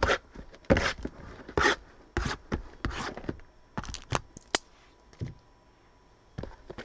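Shrink-wrapped cardboard trading card boxes handled on a tabletop: a blade scraping across the wrapped top box, then boxes slid, lifted and set down, in a string of short scrapes and knocks with a pause near the end.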